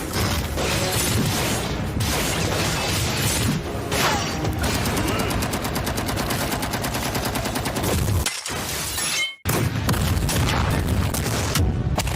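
Anime fight sound effects: a rapid, dense barrage of punch and impact hits with booms. The barrage breaks off briefly about nine seconds in, then carries on.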